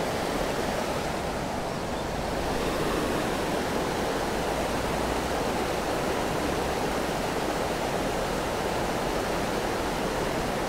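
Steady rush of creek water tumbling over a shallow riffle.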